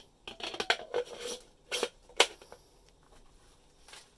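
Handling clatter of an adjustable hole saw and its clear plastic dust cover: a string of light plastic and metal clicks and knocks, the sharpest about two seconds in.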